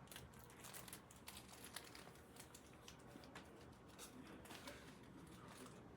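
Faint scattered clicks and crinkling rustles of things being handled.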